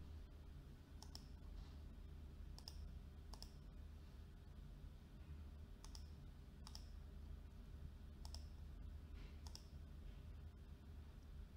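Faint computer mouse button clicks, about seven of them spread unevenly, over a steady low hum.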